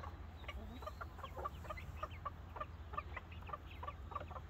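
Chicks peeping: short, high cheeps, several a second, over a low steady hum.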